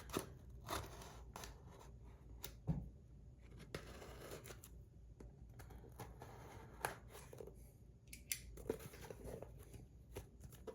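A shipping package being opened: faint, scattered clicks, scrapes and short tearing sounds of tape and packaging being cut and pulled.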